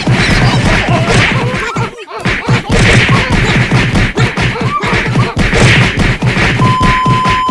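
Rapid, dense run of stick whacks and blows in a staged beating, loud throughout. Near the end a steady high electronic beep comes in.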